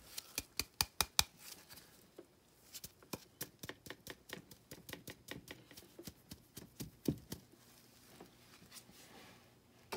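Light, irregular clicking and tapping of a thin plastic container and the tin can as finely ground powder is tipped and shaken out into the can. There is a quick cluster of clicks at first, then a run of small ticks with one louder tap near the end.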